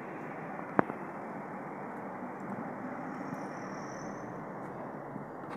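Steady rushing background noise, with a single sharp knock about a second in.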